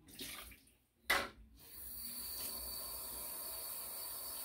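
A short splash of poured water and a sharp knock about a second in, then a kitchen tap running steadily, topping up warm water to bring it to the right temperature.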